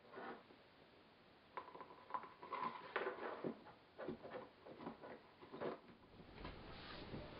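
Hands handling a plastic gear-lube hand pump, its tubing and plastic fluid bottles on a tabletop: a run of light taps, clicks and plastic knocks, with a brief squeak near the start of them. After about six seconds only a faint steady hum remains.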